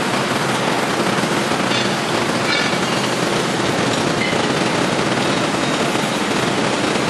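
Horizontal baler for paper and plastic running, a steady, dense, rapid mechanical clatter.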